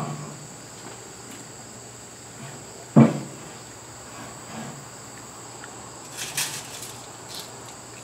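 One sharp metal knock about three seconds in as a clamp-on steel pallet fork tine is shifted on the edge of a tractor's loader bucket, then a few light clicks and rattles near the end. A steady high drone of crickets runs underneath.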